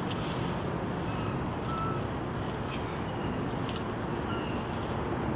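Steady low outdoor rumble of wind and distant background noise, with a few faint short high chirps.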